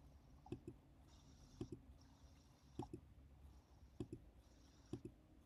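Computer mouse button clicking about once a second. Each click comes as a quick pair of press and release, over faint hiss.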